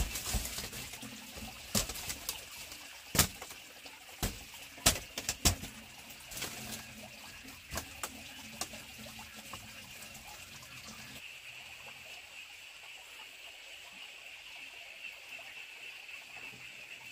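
Bamboo knocking and clacking as woven bamboo wall panels are handled and fitted: a series of sharp knocks in the first half, loudest about three to five seconds in. A steady faint hiss runs beneath and is all that remains in the second half.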